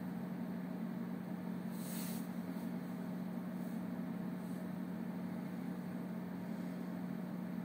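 Steady low electrical-sounding hum over a background hiss, with a brief soft rush of hiss about two seconds in.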